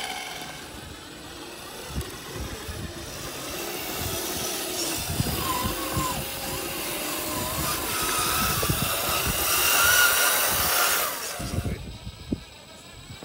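Small electric motors and gearboxes of RC scale crawler trucks whining as they climb over rock, the whine rising and falling with the throttle, with scattered knocks of tyres and chassis on the stone. It is loudest in a stretch a couple of seconds before the end, then drops away.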